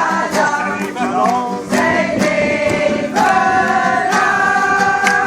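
Music with several voices singing together; about three seconds in they settle into long held notes.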